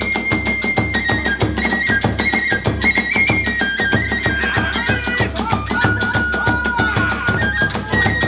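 Kagura festival music: a bamboo flute playing a held, stepping melody over a fast, steady beat of taiko drum and small hand cymbals.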